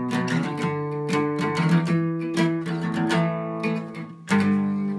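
Acoustic guitar, capoed, strummed in chords as an instrumental stretch between sung lines of a song. The strumming eases off briefly near the end, then comes back with a hard strum.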